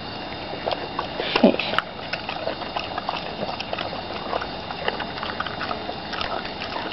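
Dog licking meat juices off wooden deck boards: a steady run of small wet clicks and smacks, a little louder about one and a half seconds in.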